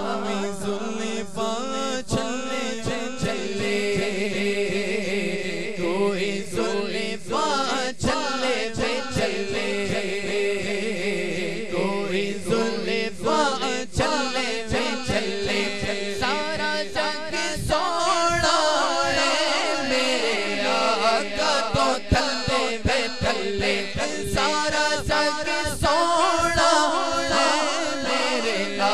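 Two men singing a naat, an Islamic devotional song, into handheld microphones through a sound system.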